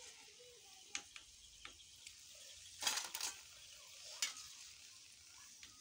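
Pakoras frying in hot oil in a wok, sizzling faintly, with a few light clicks of a long metal spoon against the wok and a short scrape about three seconds in.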